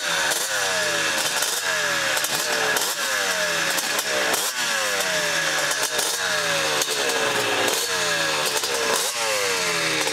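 ATV (quad) engine revving in a rapid series of throttle blips, each rev dropping away before the next, about one and a half a second.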